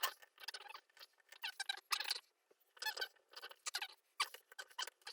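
Small parts of a laptop being handled during reassembly: an irregular run of short clicks and squeaks, several a second.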